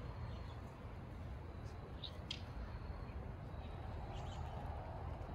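Garden ambience: a steady low rumble with a few short, high bird chirps, a pair a little after two seconds in and more around four seconds.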